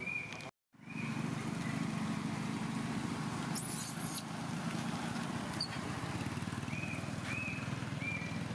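A steady low engine drone, like a motor vehicle running, after the sound cuts out completely for a moment just under a second in. Short high chirps come a few at a time near the start and again near the end.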